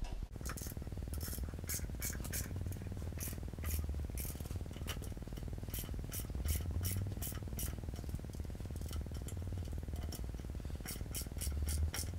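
Allen key working the expansion bolts of a ground anchor down into concrete: many irregular metallic clicks and scrapes over a low rumble. The bolts are stiff to turn as they spread and dig into the concrete.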